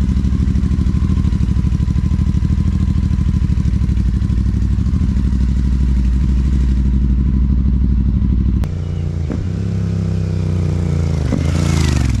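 Royal Enfield Super Meteor 650's parallel-twin engine idling steadily through its exhaust. About nine seconds in the sound changes abruptly and the engine is revved, its pitch dipping and then climbing steeply near the end.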